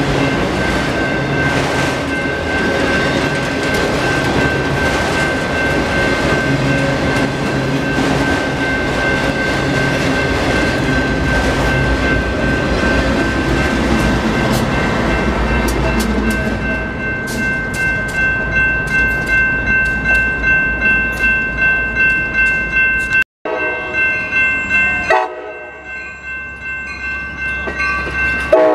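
A freight train of autorack cars rolling past with wheels clattering and rumbling, and a diesel locomotive going by about halfway through. The train noise then fades, leaving a grade-crossing bell ringing steadily about twice a second.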